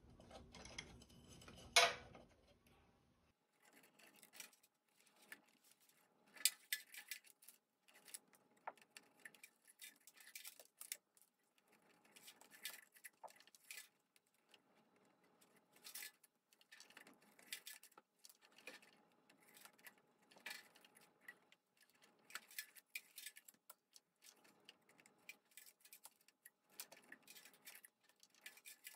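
Faint, irregular clicking and rubbing of an insulated wire being wound by hand, turn after turn, tightly around a copper water pipe to form the coil of an electronic anti-scale water conditioner. A sharper click comes about two seconds in.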